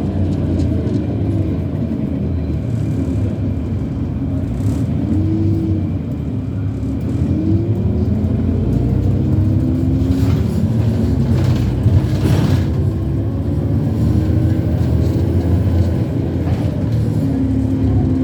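Irisbus Citelis CNG city bus running with a steady low rumble. Over it a whine rises and falls in pitch several times as the bus speeds up and slows, the strange sound the bus is known for.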